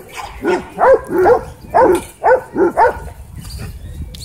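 Dog barking loudly, about eight quick barks in the first three seconds, then it stops.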